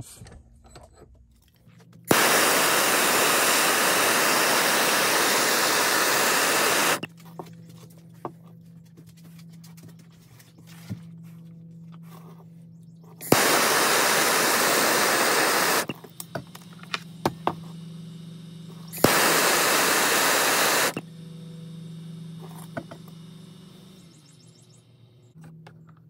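Handheld gas torch lit three times, each starting with a click and then hissing steadily for about five, two and a half and two seconds, while it heats a copper battery-cable lug to melt solder into it. Between the burns there are light clicks and handling sounds over a low steady hum.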